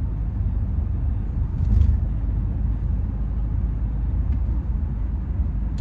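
Steady low rumble of a moving vehicle, swelling briefly about two seconds in.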